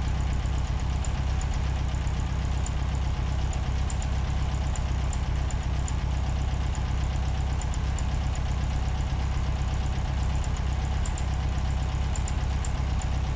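A steady low hum, even and unchanging, with no distinct events.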